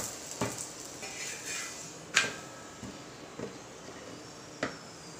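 Steel spoon scraping and tapping on a hot iron tawa while spreading fat over a paratha, with a few sharp clinks, the loudest about two seconds in, over a faint sizzle.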